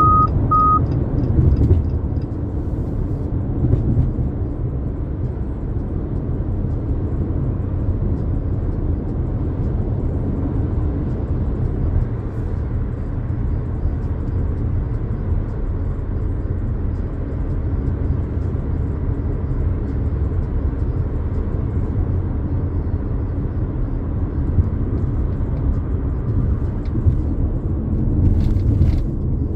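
2022 Jeep Compass Latitude with its 2.4-litre MultiAir four-cylinder under way, a steady low road and engine rumble. Two short high beeps sound right at the start, and the rumble swells briefly with a hiss near the end.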